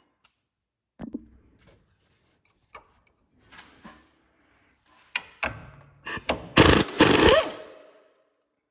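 Scattered knocks and clinks of hand tools and parts being handled, then a loud rasping burst lasting about a second near the end.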